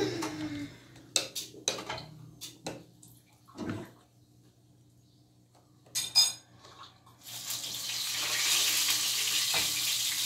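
Dishes and cutlery clinking and clattering. About seven seconds in, a tap starts running water steadily into a sink.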